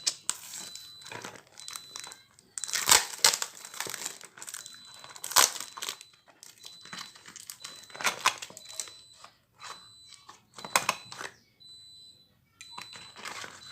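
Plastic wrapping and adhesive tape crinkling and tearing as a taped-up nano spray mister is unwrapped by hand, in irregular rustles with louder bursts about 3, 5½, 8 and 11 seconds in.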